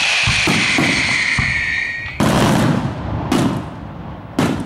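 Professional aerial fireworks bursting close overhead: crackling throughout, a long whistle that falls steadily in pitch over the first two seconds, then three sharp bangs about a second apart.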